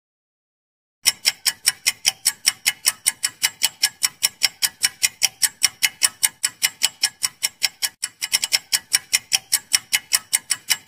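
Clock-ticking sound effect marking a quiz answer timer: sharp, even ticks at about four or five a second, starting about a second in and briefly quickening a little after eight seconds.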